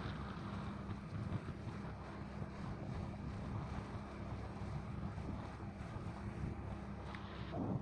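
Wind buffeting the microphone over a steady low rumble from a pontoon boat under way on the lake.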